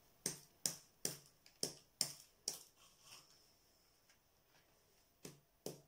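Small hammer tapping glass beads to crush them, about two or three sharp taps a second. The tapping stops about two and a half seconds in and starts again with two taps near the end.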